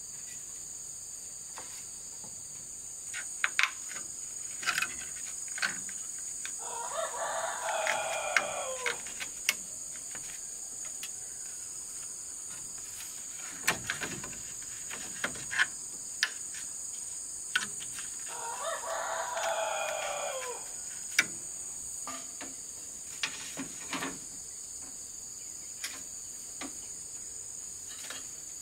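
A rooster crows twice, about ten seconds apart, over a steady high-pitched drone of insects. Scattered light knocks and clicks come from bamboo poles being handled and tied.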